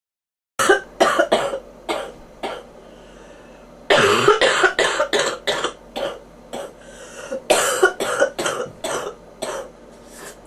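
A person with bronchitis coughing in three fits of rapid, repeated coughs, with a single cough near the end.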